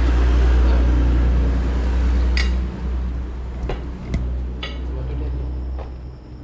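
Steady low rumble, loudest in the first half, with a handful of sharp tableware clinks from about two seconds in.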